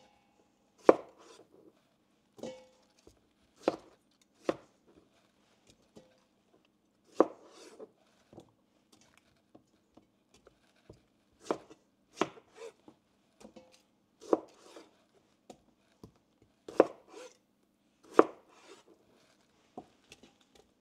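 Knife chopping on a cutting board in slow, irregular strokes, a dozen or more sharp knocks mostly one to two seconds apart.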